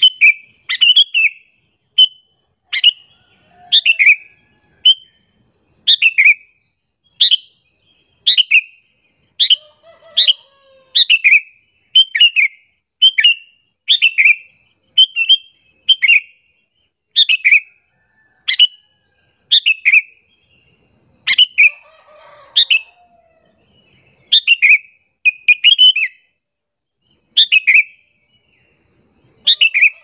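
Sooty-headed bulbul (kutilang) calling: short, sharp falling notes, sometimes doubled, repeated about once a second. This is the call bird-keepers use as a lure to draw other bulbuls in.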